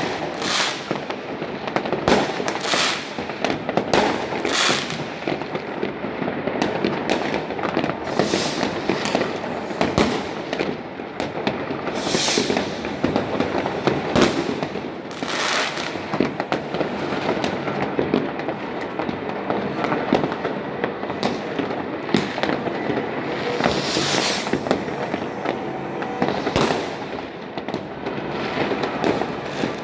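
Fireworks going off continuously: a dense crackle of many overlapping bangs, with sharper loud bangs standing out every second or two.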